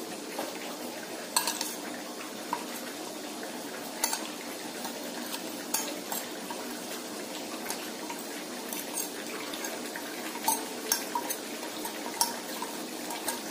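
Metal spoon clicking and scraping on ceramic saucers and a bowl, as spice powders are spooned into yogurt. The light clicks come irregularly over a steady low hiss.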